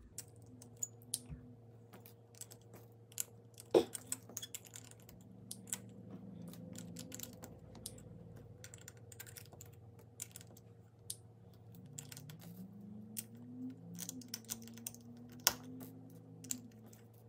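Small plastic LEGO pieces clicking and clattering as they are handled, sorted and pressed together: irregular light clicks with a few sharper knocks, about four seconds in and near the end. A faint steady hum runs underneath.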